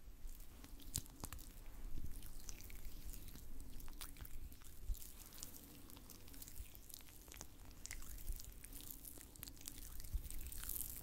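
Oiled hands in red rubber gloves rubbing and working an oil massage, giving irregular wet, sticky crackles and squelches.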